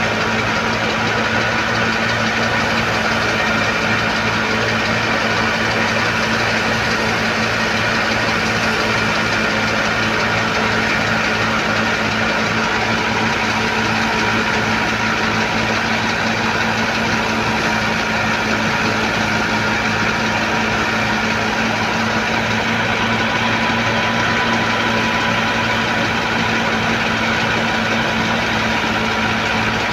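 Wheat thresher running steadily under its engine drive, a constant loud machine drone with a steady pitched hum and no change in speed.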